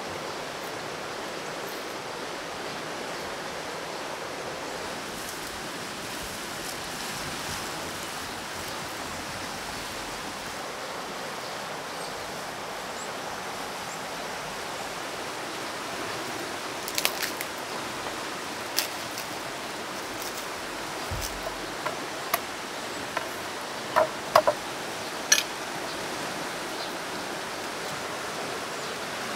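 Kindling catching in a wood fire, giving about a dozen scattered sharp crackles and pops in the second half, over a steady rushing hiss.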